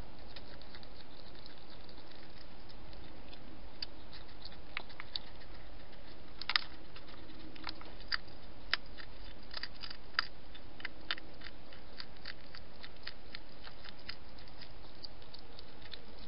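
Wild European hedgehog crunching dry food from a dish: irregular sharp crunches and clicks, the loudest about six and a half seconds in, over a steady background hiss.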